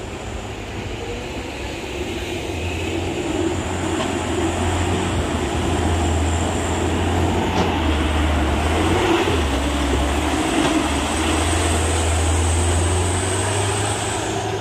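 A heavy road vehicle's engine running loudly, growing louder over the first few seconds and then holding steady before easing off at the very end.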